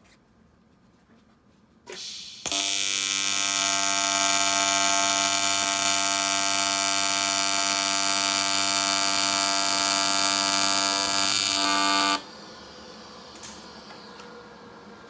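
AC TIG welding arc on an aluminum intercooler pipe: a short crackle as the arc starts about two seconds in, then a loud steady buzz for about ten seconds that cuts off suddenly, leaving a fainter hum.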